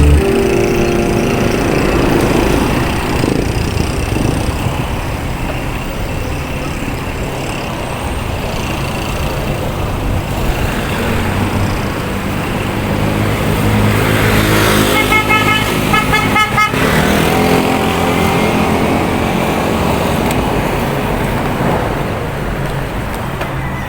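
Road traffic noise with passing motor vehicles; about two-thirds of the way through, a horn sounds in a fast pulsing burst for under two seconds.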